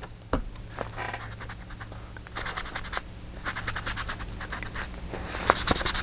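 Ink being rubbed around the edges of a paper envelope with quick, scratchy back-and-forth strokes, in two runs of a second or so each.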